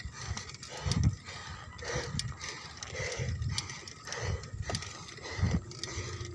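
A cyclist's hard, laboured breathing while straining up a steep climb, coming in even heaves about once a second, with low thumps on the same beat and scattered sharp clicks from the rocking bike.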